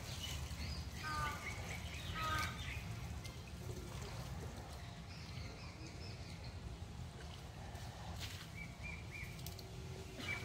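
Birds chirping a few times over a low, steady outdoor rumble, with faint water trickling.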